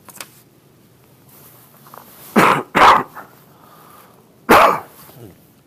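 A man coughing three times into his arm, loud and close to a microphone worn at his throat: two coughs in quick succession about two and a half seconds in, then a third about a second and a half later.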